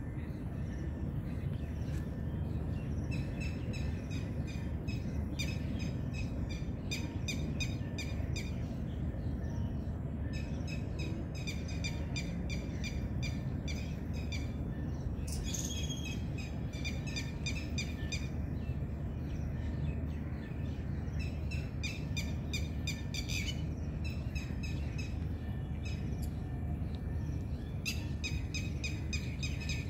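Red-wattled lapwing calling in rapid series of sharp, repeated notes, several bursts of two to three seconds each, over a steady low rumble.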